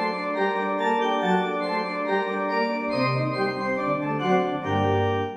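Short organ jingle: sustained organ chords, with lower bass notes joining about three seconds in.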